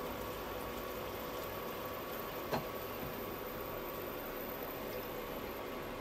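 Tap water running steadily into a kitchen sink while dishes are washed, with one sharp clink of a dish about two and a half seconds in.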